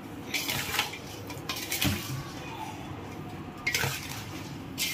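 Spatula stirring spice-coated pickle pieces in a stainless steel bowl, with a few short scrapes and clinks of the spatula against the metal bowl while the oil is being mixed in.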